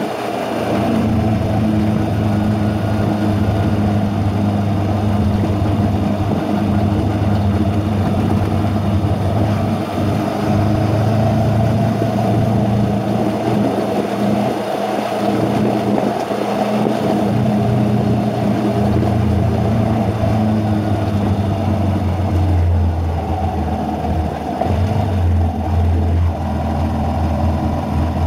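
Motorcycle engine running steadily while riding, its pitch shifting a few times with speed, over a constant rush of wind and road noise on the bike-mounted camera.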